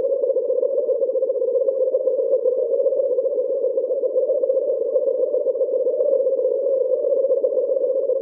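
Synthesized alien-insect ambience: a steady, rapidly fluttering buzz, pitched in the low middle, holding without change.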